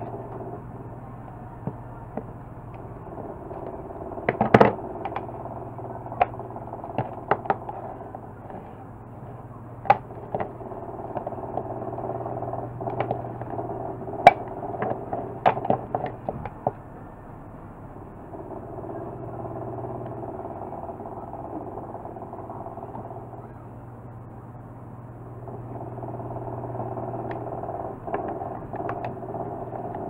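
Scattered clicks and knocks as the plastic housing and small parts of a hair dryer being taken apart are handled on a wooden bench, the loudest about four and a half seconds and fourteen seconds in. Under them runs a steady low hum that swells and fades.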